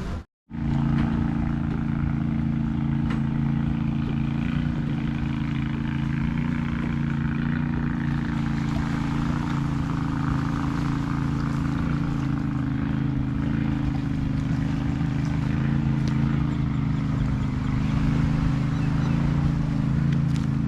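An engine running at a steady idle, a constant low hum that does not rise or fall.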